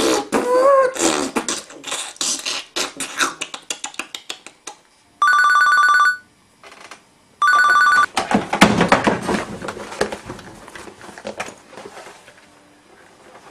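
Telephone ringing twice, each ring a steady two-tone trill of about a second. Before the rings comes a dense, rapid clatter of knocks and clicks, and a fading clatter follows them.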